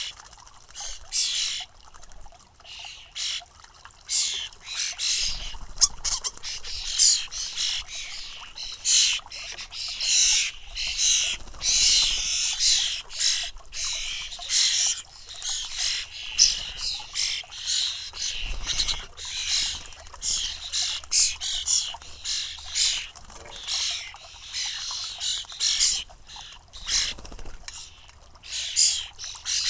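European starling fledglings calling: a dense stream of harsh, raspy begging calls, many in quick succession and overlapping.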